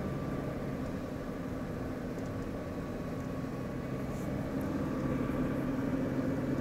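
Steady car cabin noise while driving, heard from inside the car: a low engine hum over road noise, a little louder from about four seconds in.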